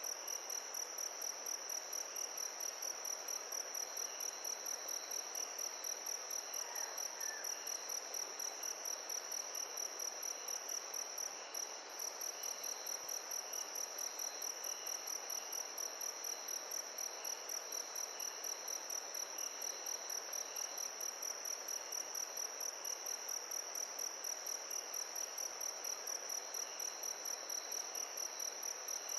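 Crickets chirping in a continuous high, evenly pulsing trill, about three pulses a second, over a soft steady rush.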